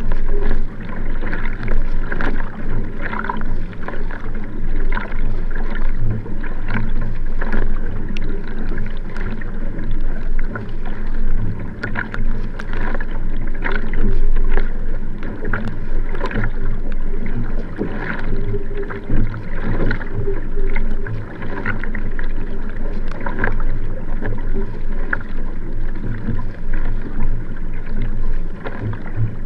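Water rushing along the hull of a Nelo Vanquish sprint kayak moving at race pace, with the splash of paddle blades entering and leaving the water stroke after stroke.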